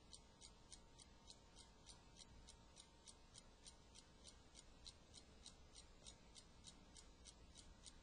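A clock ticking faintly and evenly, about four ticks a second.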